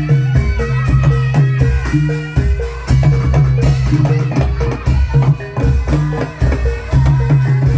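Live Javanese gamelan-style folk music: repeated drum strokes over short, repeating pitched metallophone notes and a steady low bass note.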